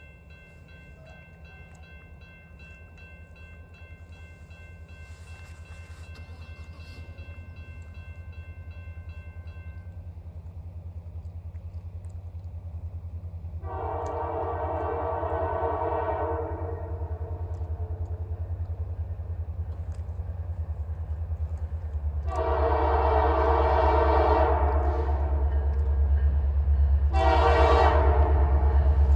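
Approaching CPKC Holiday Train locomotive sounding its horn: two long blasts, then a third beginning near the end, over a low engine rumble that grows steadily louder as it nears. For the first third a grade-crossing bell rings with steady regular strikes, then stops.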